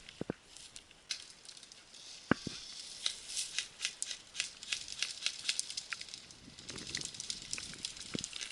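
Dry leaves and twigs crackling and crunching in quick, irregular succession, as someone moves through dry undergrowth, with a few louder sharp knocks: two at the start and one a little after two seconds.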